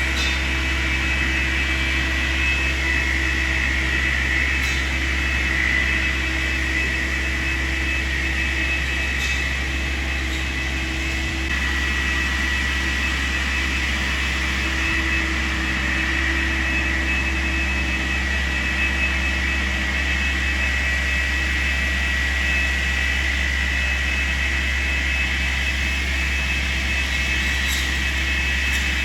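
Tree-trimming skidder running steadily, heard from far off: a low engine rumble with a steady high whine over it.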